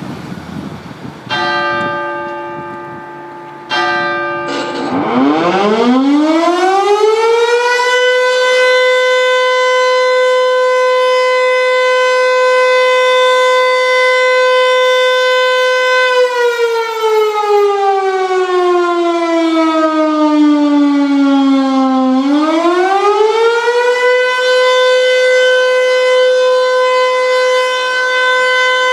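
Two bell strokes, each ringing out and fading, then a French civil defence alert siren on its first-Wednesday-of-the-month test. The siren winds up to a steady wail, holds it, slides down to a lower pitch, then winds back up and holds again.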